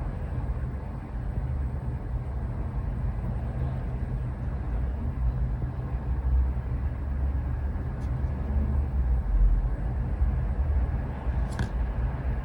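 Steady low rumble of background noise, with a faint click about eight seconds in and a short sharp sound near the end.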